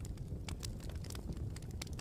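Campfire crackling: irregular sharp snaps and pops, several a second, over a steady low rumble.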